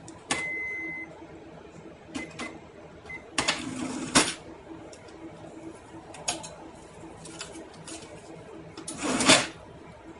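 Cash register in use: a short electronic beep near the start, then scattered key clicks and several rattling mechanical bursts, the loudest near the end.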